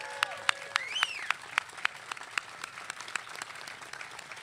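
Audience applauding, with sharp, loud single claps close to the microphone for the first couple of seconds, settling into more even applause.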